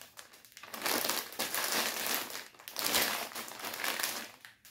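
Clear plastic saree packet crinkling in the hands as it is handled and turned, in irregular rustles.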